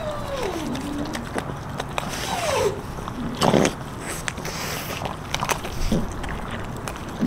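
French bulldog puppies chewing and crunching a whole raw chicken, with scattered sharp cracks of bone and cartilage and a louder burst about three and a half seconds in.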